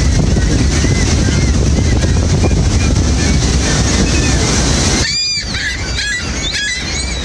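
Steady roar of Niagara Falls' water under repeated gull calls. About five seconds in the roar drops away, and several gull calls come through clearly in quick succession.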